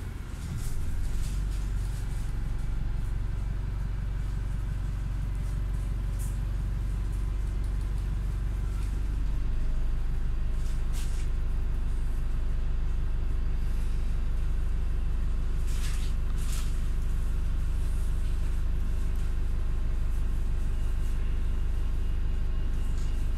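Low, steady engine and road rumble heard from inside a moving road vehicle, growing louder about ten seconds in as it picks up speed, with a few brief hisses.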